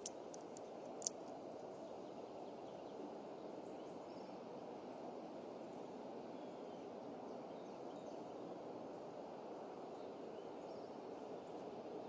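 A steady low rush of outdoor background noise. In the first second there is a quick cluster of sharp clicks and twig cracks, the loudest about a second in, as a bald eagle shifts sticks in its nest.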